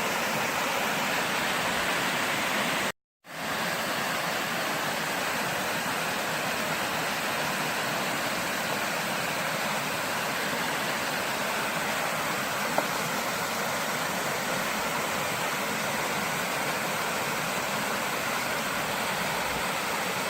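Small waterfall on a creek rushing steadily, with a brief dropout to silence about three seconds in.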